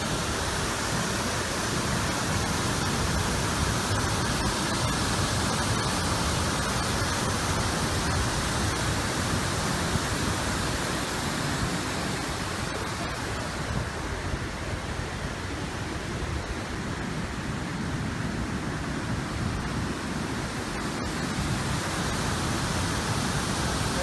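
Steady rush of water pouring over the Manavgat Waterfall, a wide, low falls where the Manavgat River drops 3–4 m over a ledge. The high hiss of the spray thins somewhat about halfway through.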